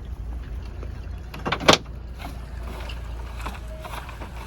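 A steady low rumble with scattered light knocks, and one loud sharp clank about a second and a half in.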